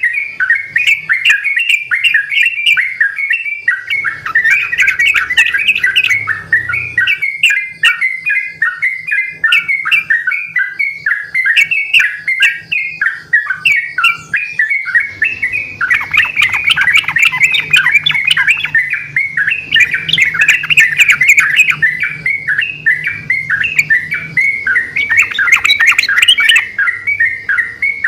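Yellow-vented bulbuls (trucukan) singing in fast, continuous bubbly phrases, several birds answering each other. From about halfway, the overlapping song gets fuller and louder.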